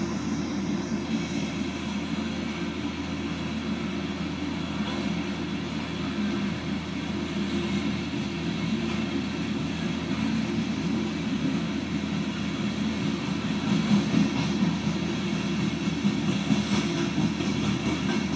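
Coal train's hopper cars rolling past, a steady rumble of wheels on rail, played back through a laptop's speakers.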